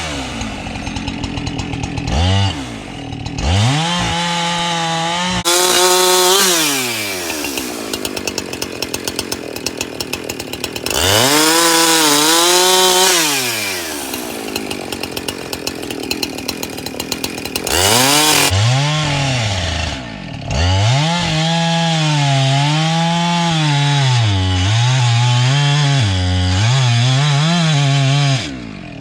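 Gas chainsaw idling and revving up in repeated bursts, dropping back to idle between them. In the longest burst near the end, the engine pitch dips and recovers again and again as it works in the cut.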